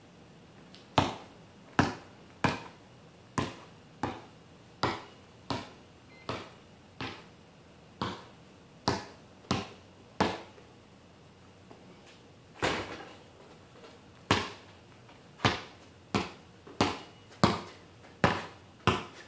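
A basketball being dribbled on a concrete driveway: about twenty single sharp bounces, spaced well under a second apart, with a pause of a couple of seconds about halfway through.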